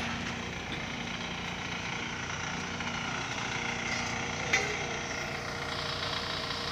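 Steady hum of a running engine, with a single sharp knock about four and a half seconds in.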